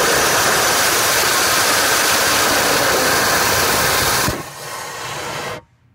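Paraffin-wax and gaseous-oxygen hybrid rocket engine firing, a loud steady hiss of exhaust. A little over four seconds in the burn ends and the sound drops to a quieter hiss for about a second before cutting off suddenly.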